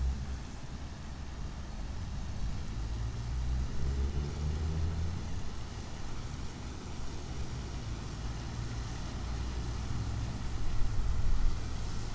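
City road traffic: the low engine rumble of passing vehicles, swelling about four seconds in and again near the end.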